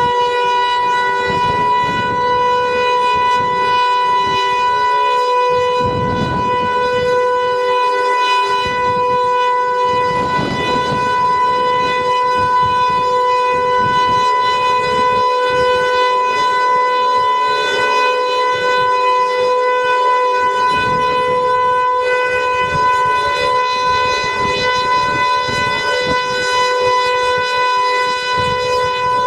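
Outdoor warning siren sounding during a test, holding a steady tone that neither rises nor falls, with a low rumbling noise beneath it, strongest about six and ten seconds in.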